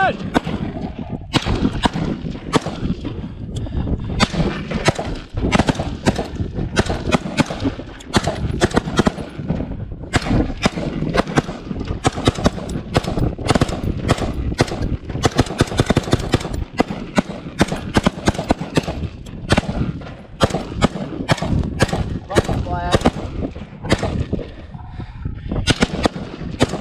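Sustained live fire from several rifles at close range: dozens of shots coming irregularly and often overlapping, with only brief lulls.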